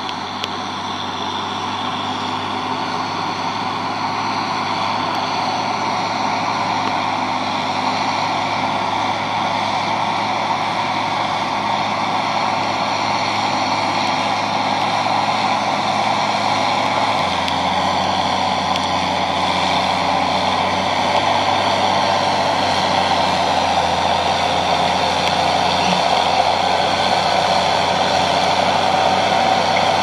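John Deere 6910 tractor's six-cylinder diesel engine working steadily under load as it pulls a five-furrow plough through the soil. It grows gradually louder as the tractor comes closer.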